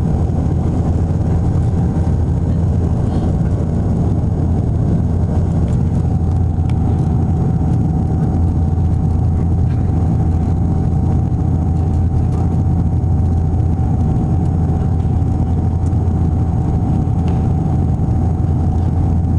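Cabin drone of a Bombardier Dash 8 Q400 turboprop on final approach with the landing gear down: a loud, steady low engine and propeller hum with a steady higher tone above it.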